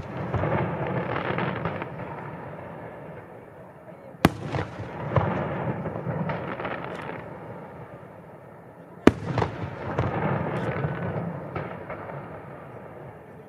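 Aerial firework shells bursting in the distance: two sharp booms about five seconds apart, each followed by a few seconds of crackling rumble.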